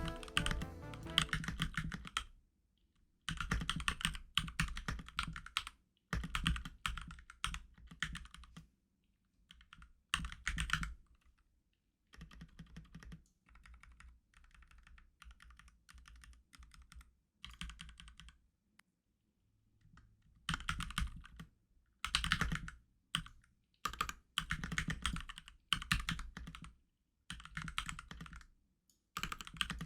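Typing on a Keychron K2 v2 75% mechanical keyboard with brown switches: bursts of quick keystrokes broken by short pauses, softer and sparser through the middle stretch.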